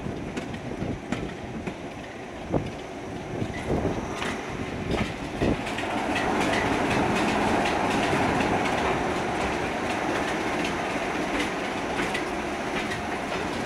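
Class 26 diesel locomotive, Sulzer six-cylinder engine, running slowly with its wheels clicking over rail joints. About six seconds in, a louder steady rush sets in and holds.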